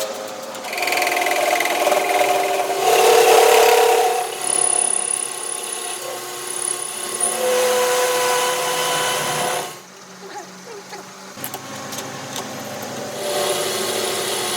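Power tools working a metal part. The noise shifts in character every few seconds, drops about ten seconds in and picks up again near the end.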